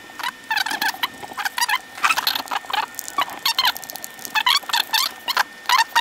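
Plastic card edge squeaking and scraping across a CPU's metal heat spreader as it spreads a thin layer of thermal paste, in quick irregular runs of short, high squeaks as the card is worked back and forth.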